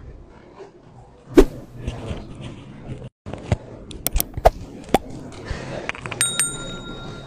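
Scattered knocks and clatter over the low noise of a hall full of seated people. About six seconds in comes a short ringing tone that holds for about a second.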